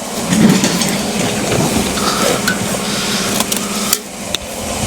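A 2014 Chevrolet Silverado's 5.3 V8 running at idle with a misfire, with a few light clicks near the end.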